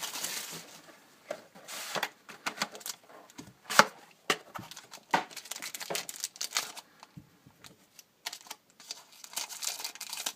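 Plastic card-pack wrappers crinkling while trading cards are handled, with scattered sharp rustles and clicks.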